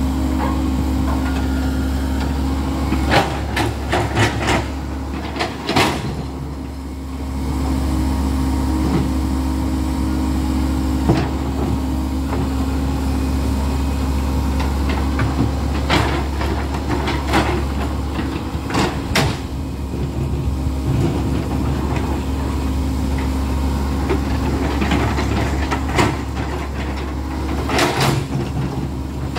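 Komatsu crawler excavator's diesel engine running steadily while the bucket scoops stones out of muddy water, with repeated sharp clanks of rock against the steel bucket.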